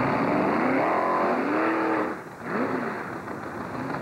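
Drag-racing motorcycle engine revving: a long rev that climbs and falls back, a brief dip about two seconds in, then a shorter blip of the throttle.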